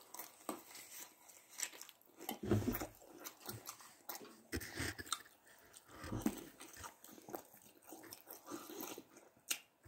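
A person chewing a mouthful of pizza close to the microphone after taking a bite: irregular soft chewing sounds with small mouth clicks.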